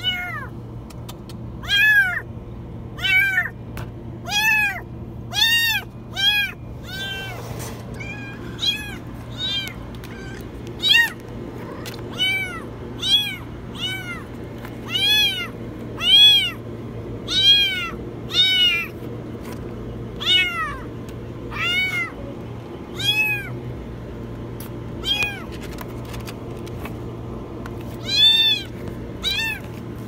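A kitten trapped inside a washing machine meowing very high, over and over: short rising-and-falling cries about once a second, with a few seconds' pause near the end before two more.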